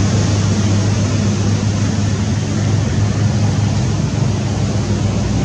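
A steady low mechanical drone, a constant hum with a hiss over it, unbroken throughout.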